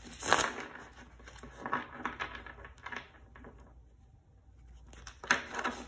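A deck of tarot cards being shuffled by hand, in short bursts of cards sliding and slapping against each other, with a quieter pause around the middle.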